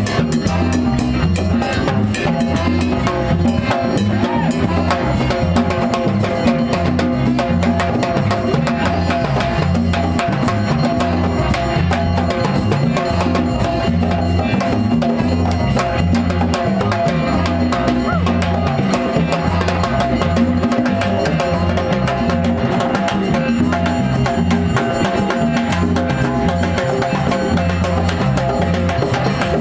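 Live band playing a steady-tempo tune, with drum kit and a bass line stepping between notes.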